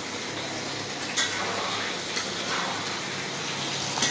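Hot oil sizzling steadily in a wok on the stove, with a low steady hum underneath and a couple of faint clicks.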